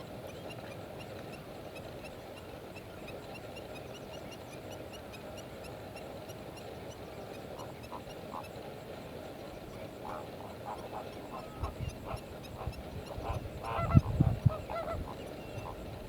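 A flock of lesser flamingos calling with goose-like honks over a constant murmur of chatter. The honks grow more distinct in the second half and are loudest about three-quarters of the way through, where some low thumps come with them.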